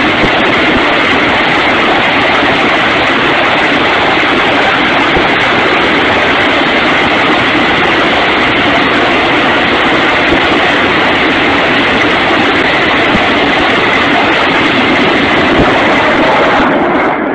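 A battery of truck-mounted multiple rocket launchers firing a salvo: a loud, continuous roar of rockets launching one after another, cutting off suddenly near the end.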